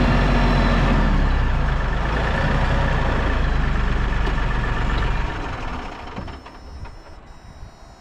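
Kioti compact tractor's diesel engine running loudly under way, then dropping sharply to a much lower sound about five seconds in as it is throttled back or stops.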